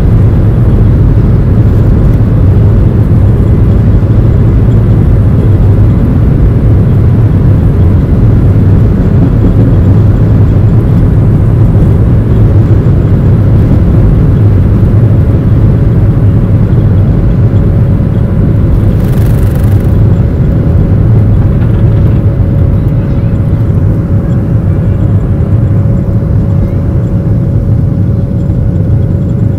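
Jet airliner's engines at takeoff thrust, heard from inside the cabin: a loud, steady low rumble and roar through the takeoff roll and liftoff. A steady whine comes in past the halfway point, and there is a brief hiss about nineteen seconds in.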